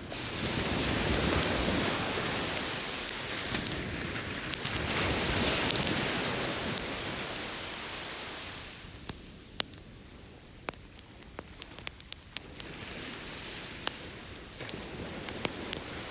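Ocean waves washing in, swelling and fading twice, over a bonfire crackling with sharp pops that stand out most when the surf dies down.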